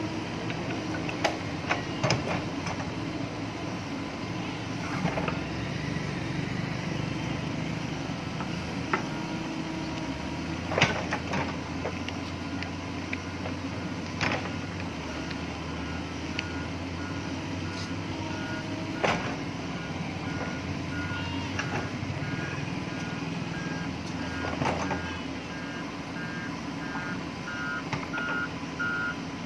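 Backhoe loader's diesel engine running steadily under digging load, with occasional sharp knocks as the bucket scrapes and strikes soil and stones. Through the second half a reversing alarm beeps in an even rhythm, getting louder near the end.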